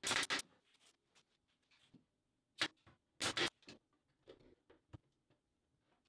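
Nailing poplar edge banding onto plywood cabinet edges: sharp knocks in short groups, a double knock at the start, a single one and a quick cluster around three seconds in, then fainter ticks.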